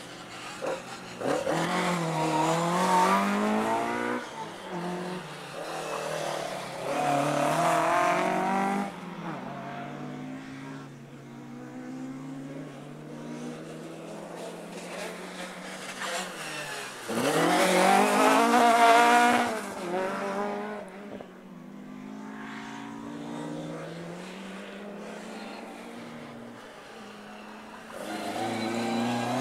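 Rally cars' engines revving hard through a tyre chicane, in loud bursts of acceleration whose pitch climbs and drops with each gear change. About three cars go through, with a quieter engine note between them and another car arriving near the end.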